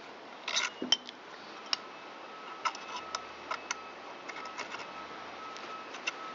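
Scattered small metallic clicks and ticks from a hand tap and tap wrench being worked in an engine case's bolt hole and backed out to clear the chips. A faint steady high tone sits underneath from about two and a half seconds in.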